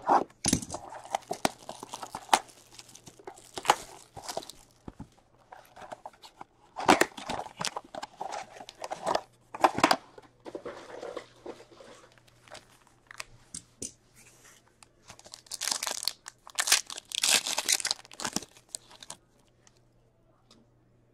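Hands tearing open an Upper Deck hockey card blaster box and then ripping open a card pack's shiny plastic wrapper: irregular tearing and crinkling, with the loudest rips late on, stopping about two seconds before the end.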